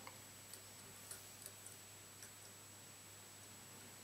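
Near silence: room tone with a low steady hum and a few faint, scattered ticks.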